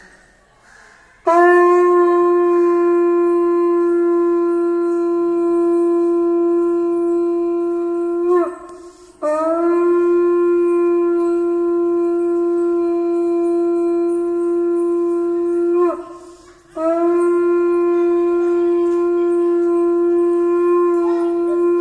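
Conch shell trumpet (shankha) blown in three long, steady blasts at one pitch, each about seven seconds long, with short breaths between. The first starts about a second in, and the third is still sounding at the end.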